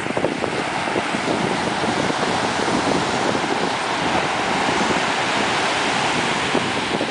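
Steady wind buffeting the microphone over the continuous wash of ocean surf.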